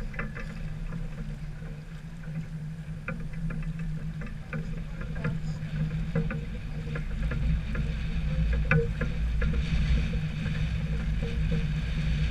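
Islander 36 sailboat underway: a steady low hum with wind and water noise, and scattered light clicks and knocks. The low wind rumble grows stronger about halfway through.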